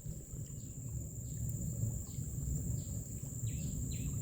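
Outdoor nature ambience: insects keep up a steady high-pitched drone while a bird repeats short falling chirps, more often in the second half, over a low background rumble.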